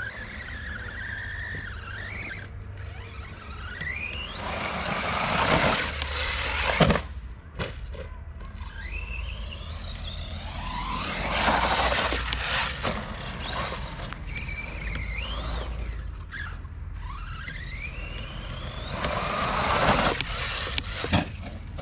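Redcat Camo TT Pro RC trophy truck's brushless electric motor whining up in pitch under throttle in three runs, about four, ten and nineteen seconds in, with tyres scrabbling on loose dirt. A sharp knock about seven seconds in, typical of the truck landing a jump.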